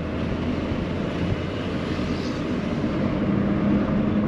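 Steady engine and road noise of a moving car, heard from inside the cabin, with a low engine hum that grows stronger about three seconds in.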